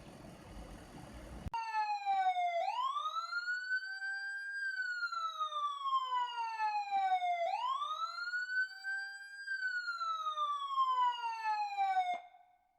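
Siren-like electronic tone that slides slowly down in pitch, sweeps quickly back up and holds, twice over, then cuts off near the end. A faint rustle of handling comes before it.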